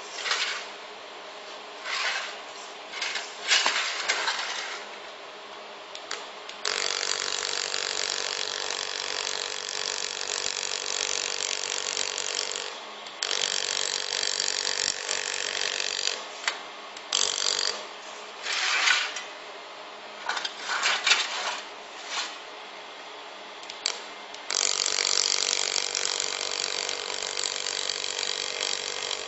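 Handheld fiber laser welder running: a steady buzzing hiss in three long runs of several seconds, with short separate bursts between them, as welds are laid along sheet-metal sign letters.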